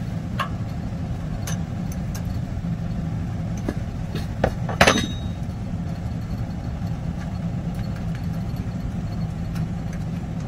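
A few light metal clinks of an open-end wrench on the brass thermocouple nut of a gas water heater's control valve, the loudest, with a short ring, about five seconds in, over a steady low hum.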